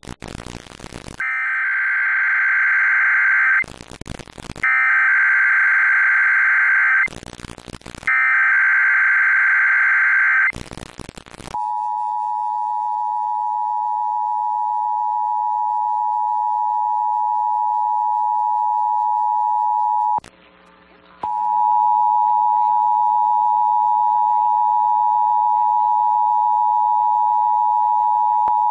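Emergency Alert System test: three bursts of the SAME digital header, a harsh warbling data tone each about two and a half seconds long with a second's pause between. It is followed by the EAS attention signal, a steady two-tone beep of 853 and 960 Hz, which cuts out for about a second partway through and then resumes.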